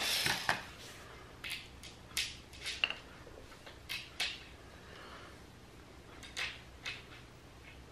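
Small steel washers and machine screws clicking and clinking as they are handled and set onto the screws as shims. A brief scuffle at the start, then a scattered series of light clicks.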